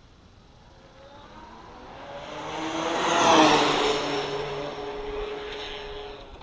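Traxxas Slash 4x4 speed-run RC car on an 8S battery passing at over 100 mph. The high whine of its electric motor and gearing swells as it approaches, is loudest about three seconds in, and drops in pitch as it goes by, then fades down the road.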